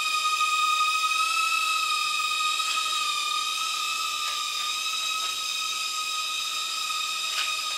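Cheerson CX-10 micro quadcopter's four tiny brushed motors and propellers running in flight, a steady high-pitched whine that wavers slightly in pitch as it manoeuvres.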